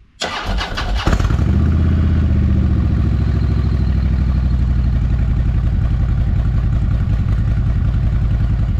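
Harley-Davidson touring motorcycle's V-twin engine being started: a short clattery crank, catching about a second in, then settling into a steady, pulsing idle.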